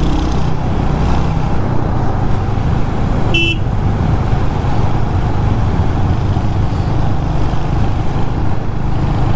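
Royal Enfield Hunter 350's single-cylinder engine running steadily under a rider, with road noise. A short horn beep sounds once about three and a half seconds in.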